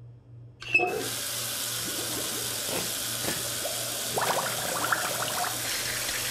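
Kitchen sink tap running: the water starts suddenly about a second in and then runs steadily into the sink while hands are washed under it, with louder splashing about four seconds in.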